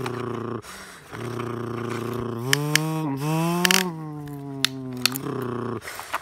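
A man's low humming, held in long steady stretches broken by short breaths and sliding up and down in pitch a little past two seconds in, the way a motor noise is mimicked in toy-truck play. Several sharp plastic clicks come from the toy excavator arm scooping dirt into a plastic toy dump truck.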